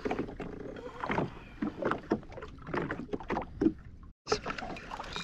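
Small waves slapping and lapping irregularly against the hull of a Sea-Doo Fish Pro jet ski, with no engine running. The sound cuts out for a moment about four seconds in.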